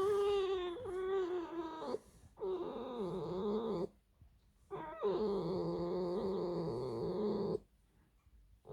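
Pet fox's creaking warning squeal: three long, wavering calls broken by short pauses. It is a defensive sound, given at a person who has come too close into her territory.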